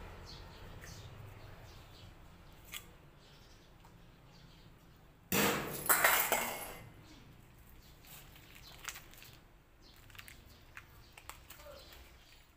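Handling noises while setting up a wire-feed welder: light metallic clicks and taps, with one loud rustling burst lasting about a second and a half, starting a little past five seconds in.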